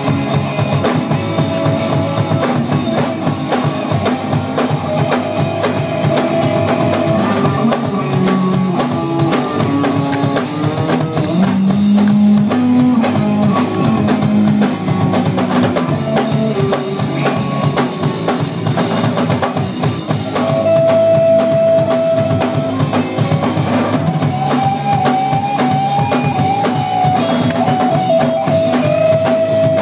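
Live rock band playing a song on drum kit and guitars.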